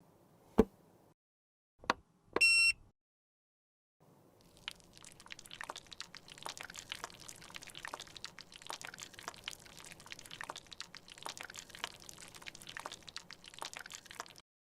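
Close-up handling sounds of lipstick being worked: two sharp clicks and a short electronic beep in the first few seconds, then, after a pause, about ten seconds of dense, fine crackling clicks and wet scraping.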